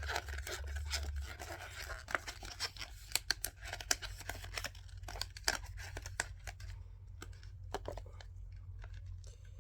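Plastic and paper being handled and pressed together: quick, irregular crinkling and crackling clicks that thin out after about six seconds.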